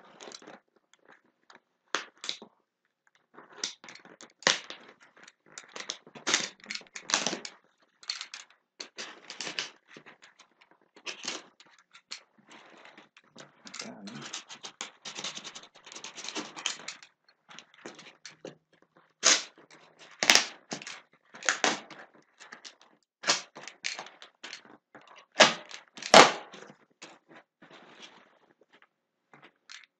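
Utility knife slicing through packing tape and cardboard on a shipping box, in irregular scratchy strokes with tearing and handling of the box. A few sharper clicks stand out in the second half.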